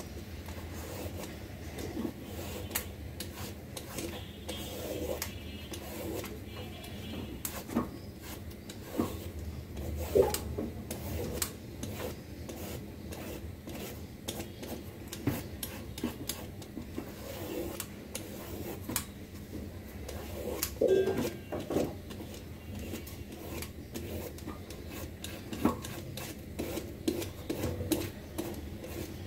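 Bottle gourd being peeled by hand: a blade scraping strips of the tough green skin off in repeated, irregular rasping strokes, a few of them louder.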